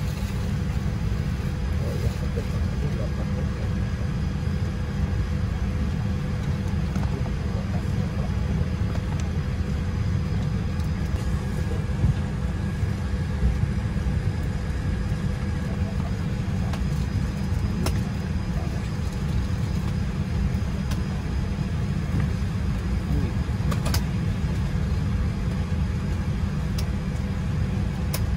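Steady low rumble of cabin noise inside a Boeing 787-8 airliner, with a few faint clicks.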